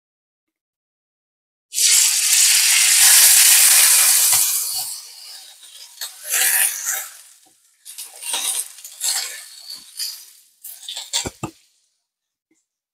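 A steak sizzling in hot oil in a frying pan: a loud hiss starts suddenly about two seconds in and slowly dies down, followed by several shorter bursts of sizzling with a few low knocks.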